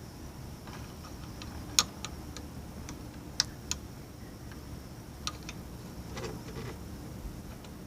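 A few sharp clicks at uneven intervals over a steady low background rumble.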